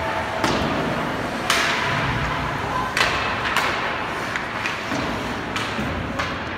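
Youth ice hockey play in an arena: irregular knocks and thuds of sticks, puck and players against the boards, about six over a few seconds, over a steady rink background noise.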